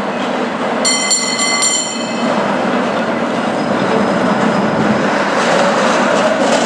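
Muni rail vehicle running on its tracks, a steady rumble of wheels and motor. About a second in, a brief high ringing tone sounds in three quick pieces.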